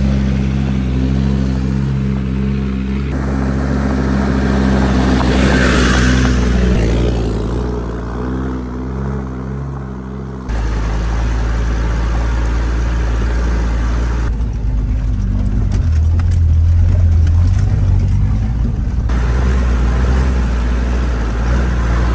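Land Rover Defender 90 Td5's five-cylinder turbodiesel engine running as it drives along a dirt track, with a low steady engine note. The engine sound changes abruptly several times as different shots are cut together.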